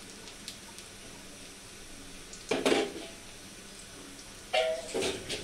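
Chopped onions frying in mustard oil in a wok, with a low steady sizzle. Louder clattering knocks of kitchen utensils and containers come about two and a half seconds in and again near the end.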